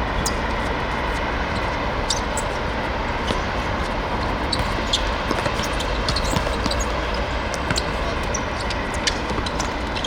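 Steady background roar of a football match in play, with scattered short knocks and clicks from the ball and players' feet.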